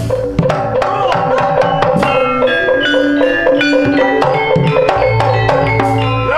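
Javanese gamelan playing a brisk piece: hand-drum (kendang) strokes over rapid struck, ringing metallophone notes.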